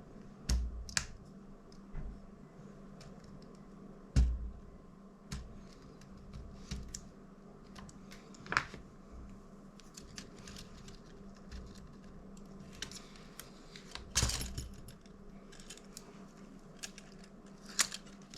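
Irregular sharp clicks, taps and small cracks of a small tool and the plastic parts of a DJI Mini 2 being worked by hand, as hot glue holding an arm to the frame is pried loose. The loudest knocks come about four seconds in, with a short crackle about fourteen seconds in.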